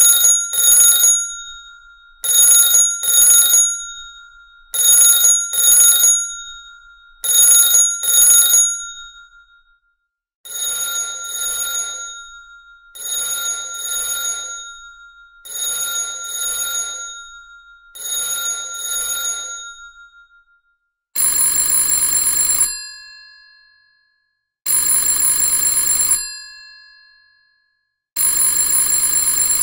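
Vintage telephone bells ringing in three different ring patterns, one after another. First a double ring, two short rings close together, repeated four times. Then a softer double ring four times, and from about two thirds of the way in, three longer single rings of about a second and a half each.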